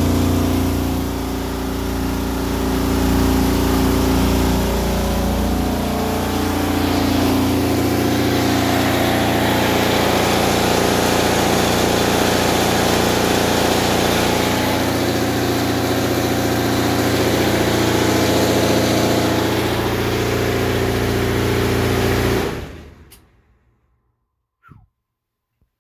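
Frigidaire Affinity electric dryer running with a loud, steady mechanical drone and hum, the vibration noise that the owner traced to the drive motor and blower assembly (housing and fan), with the blower the likely cause. The noise dies away about 23 seconds in.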